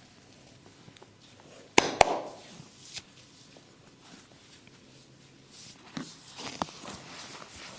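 Hand massage on a man's head and back: two sharp clicks about a quarter of a second apart, about two seconds in, are the loudest sounds. A few fainter taps and hands rubbing on skin follow near the end.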